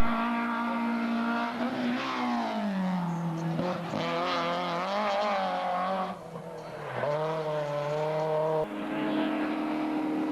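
Race car engine at high revs on a hillclimb, its pitch holding steady, then falling about two seconds in as it slows, and rising and falling again through the gears.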